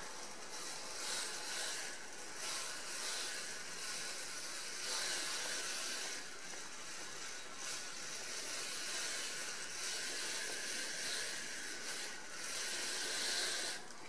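Aerosol pipe-freeze spray hissing through its extension tube into an insulation cup around a 15 mm copper pipe, in long squeezes that swell and ease, then cut off near the end. The refrigerant is still vaporising quickly off the pipe, which has more cooling to do before an ice plug forms.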